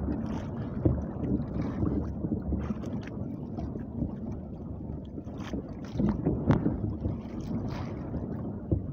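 Wind buffeting the microphone and choppy water sloshing against the hull of a small wooden outrigger boat, with a few sharp knocks and clicks.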